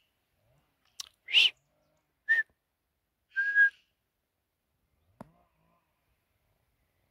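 A person whistling three short, loud, breathy whistles about a second apart, the last held a little longer at one steady pitch.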